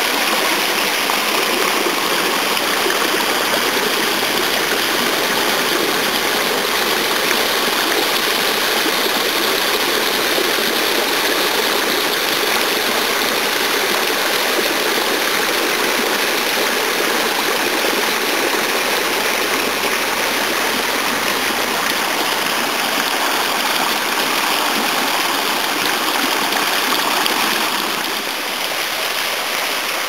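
Water splashing into a shallow stone basin and running over the stone spillways of a park fountain's cascades: a steady, loud rush that eases a little near the end.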